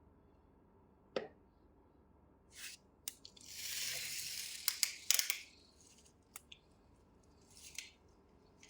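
Handling noises: scattered sharp clicks and taps, and a hissing, rustling scrape lasting about a second and a half in the middle.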